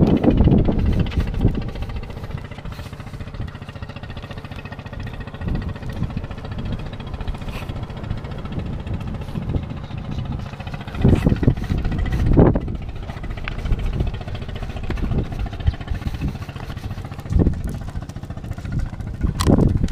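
A boat's engine running steadily out on the water, under wind buffeting the microphone. The wind gusts louder about eleven seconds in and again near the end.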